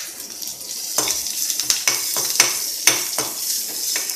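Curry leaves and chopped green chillies sizzling in hot oil with mustard seeds in a metal kadhai, a steady high hiss. From about a second in, a spoon stirring them knocks and scrapes against the pan, two or three times a second.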